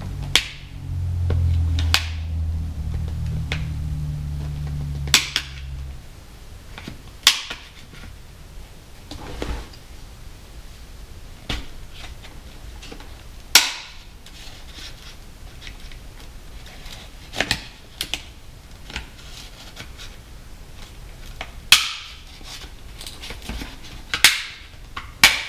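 Sharp plastic clicks and snaps, about a dozen at irregular intervals, as a screwdriver and putty knife pry the clipped-on top vent cover off a Shoei Neotec modular helmet's shell.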